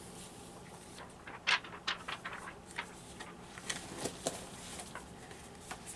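Scattered light taps, clicks and rustles of a cardboard eyeshadow palette box being handled, most of them in the middle, over a faint steady hum.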